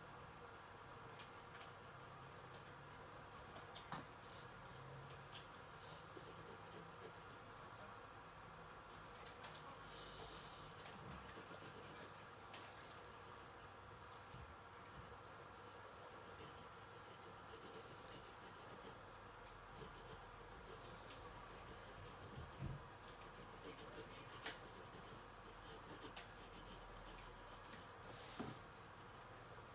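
Faint scratching of a coloured pencil on sketchpad paper as lines are drawn, in short spells of strokes that come and go, with a few soft knocks.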